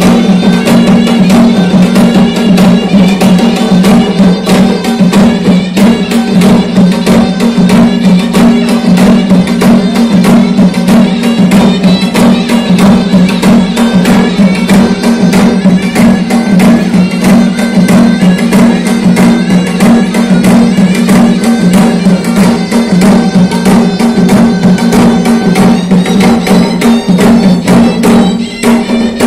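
Loud traditional Indian tribal folk music for a Savara dance: a quick, even percussion beat over a steady low drone.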